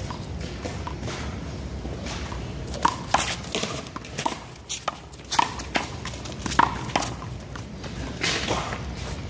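A handball rally: a small rubber handball smacked by hand against the wall and bouncing off the court, giving a string of sharp, irregular smacks, about eight between three and seven seconds in.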